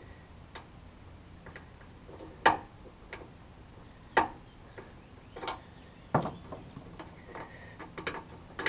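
Irregular sharp clicks and ticks, about a dozen, the loudest about two and a half seconds in: the tailgate weatherstrip and its plastic clips knocking and snapping against the metal glass channel as fingers work the strip along it.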